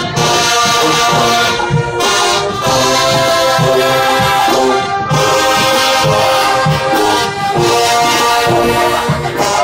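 Marching band brass playing loud: sousaphones, trumpets and trombones together, with brief breaks between phrases about two and five seconds in.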